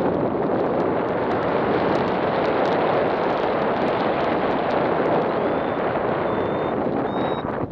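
Steady rush of wind over the microphone of a camera carried in free flight, buffeting throughout. Faint short high tones come in near the end.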